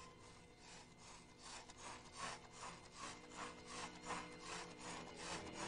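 Faint, rhythmic scraping strokes, about three a second, like rasping or sawing: a sound effect for a small cartoon robot scuttling across the floor.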